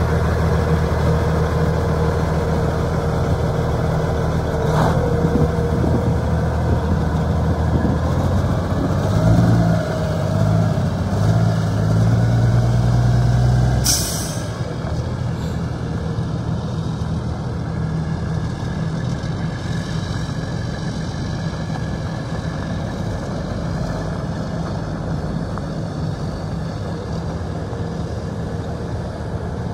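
Diesel engine of a 2003 International 9400i Eagle truck tractor running, working harder for a few seconds as the truck moves off, then growing fainter as it drives away. About halfway through comes one short, sharp burst of air from the air brakes.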